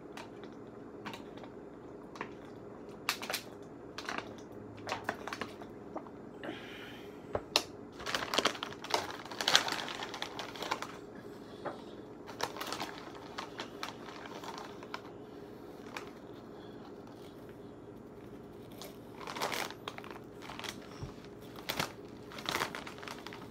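A plastic snack bag crinkling as it is handled and spicy ring-shaped chips crunching as they are eaten fast. The sounds come as irregular clusters of crackles, busiest in the middle and near the end, over a steady low hum.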